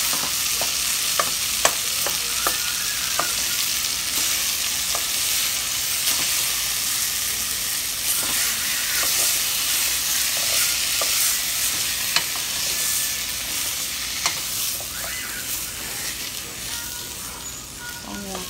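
Frozen plant-based meat crumbles sizzling in hot olive oil in a stainless steel pot while a spatula stirs them, with irregular scrapes and taps of the spatula against the pot. The sizzle eases slightly near the end.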